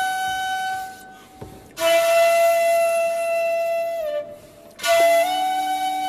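Shakuhachi playing long held notes with short pauses for breath between them: one note ends about a second in, another sounds from about two to four seconds and bends down in pitch as it ends, and a third starts about five seconds in. A lower steady tone sounds under the last note.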